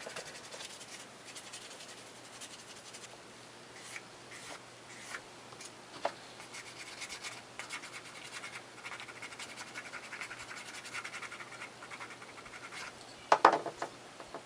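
Leather edges being rubbed, a faint dry scratching and rubbing in irregular strokes as beeswax is worked onto them ahead of burnishing. Near the end there is a short clatter of louder knocks.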